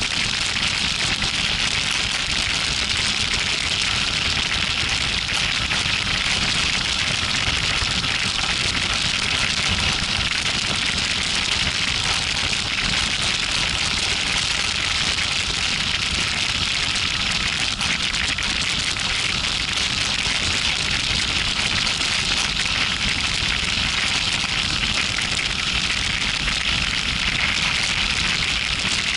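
Steady rush of wind over the microphone of a camera mounted on a moving motorcycle at highway speed, with a low rumble of road and engine noise underneath.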